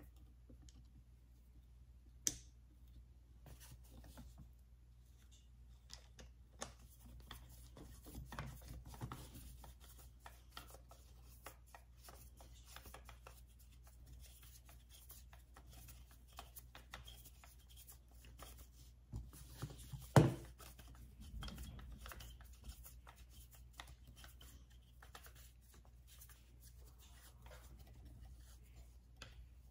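Faint clicks, scrapes and rubbing of a screwdriver working the screw that fastens a pistol grip onto the gun's lower, with the metal and polymer parts being handled. A sharp click comes about two seconds in and a louder knock about twenty seconds in.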